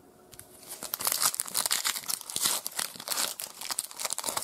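Plastic trading-card pack wrapper being torn open and crinkled by hand, a dense crackling rustle that starts about a second in and runs until just before the end.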